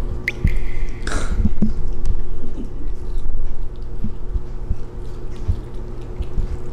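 Bichon Frise puppy's muzzle splashing and sloshing in a glass bowl of water, with scattered soft knocks. A rising whistle and a whoosh sound in the first second or so, over soft background music.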